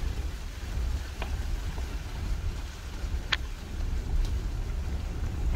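Jeep Cherokee Trailhawk driving slowly on a forest road: a steady low rumble of engine and tyres, with a couple of brief ticks.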